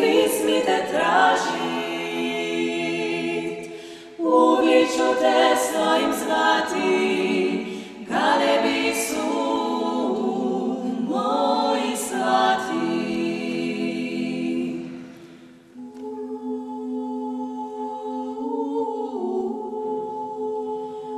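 Five female voices singing unaccompanied in close harmony, in phrases with short breaks between them. From about three-quarters of the way through they hold softer, sustained chords of long notes.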